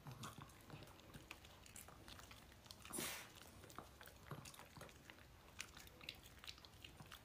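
Faint chewing and small clicks of two poodles eating soft pet sausage treats, with one brief soft noise about three seconds in.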